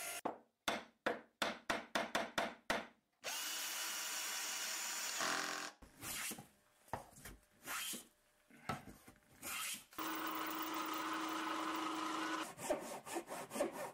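A run of woodworking shop sounds: quick strokes of a hand tool on wood at about four a second, then a power tool running steadily for a couple of seconds. Scattered knocks and scrapes follow, then another machine running with a steady hum for about two and a half seconds, and near the end fast strokes on wood again.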